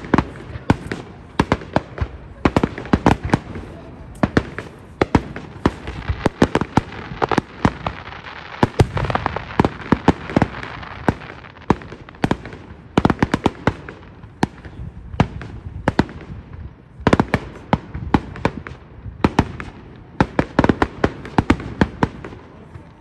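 Fireworks display: a rapid, unbroken run of sharp bangs and pops, with a denser crackling hiss swelling around the middle.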